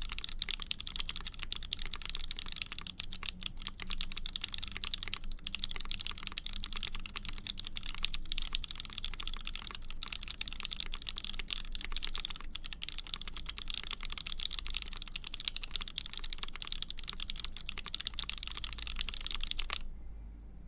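Fast typing on a brass Keycult No.1/65 mechanical keyboard with a polycarbonate half plate, GMK keycaps and lubed Frankenswitches: vintage Cherry black-bottom housings with H1 stems and tops on 60 g springs. The keystrokes come thick and continuous, then stop abruptly near the end.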